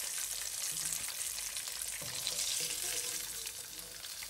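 Hot oil sizzling and crackling in a frying pan around pieces of fried gray snapper as they are lifted out on a spatula; the sizzle eases a little toward the end.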